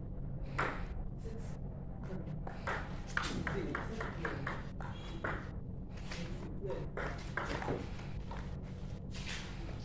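Table tennis rally: the ball clicking back and forth off the paddles and the table in a quick, uneven series of sharp clicks.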